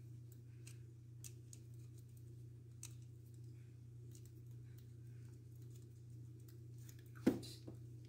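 Faint small clicks and scrapes of a screwdriver working the mounting screw of a wall outlet, with one sharp, louder click a little past seven seconds in.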